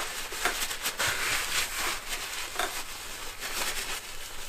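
A crumpled towel rubbing and wiping out the empty bearing seat of a bicycle suspension link, a steady crinkling rustle with a few faint clicks of the metal link in the hand.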